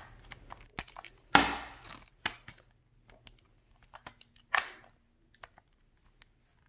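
Light plastic clicks and knocks as batteries are pried out of an AT&T U-verse remote's battery compartment and handled. The loudest knock comes about one and a half seconds in, with another past the middle.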